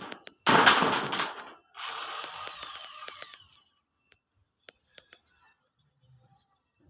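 Corrugated galvanized iron roofing sheet being handled: two rattling, scraping bursts, the second with a falling scrape, followed by a few faint clicks.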